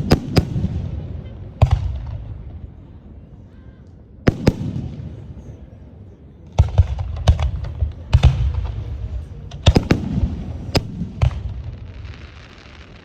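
Aerial fireworks shells bursting: sharp bangs, each followed by a deep rolling rumble that fades over a second or two. There are a few bangs early on, a lull, then several in quick succession from about six seconds in, with a last one near the end.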